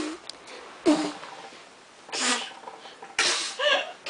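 A child making short, sputtering fart noises with her mouth against her hand, four bursts about a second apart, followed by a brief wavering vocal sound near the end.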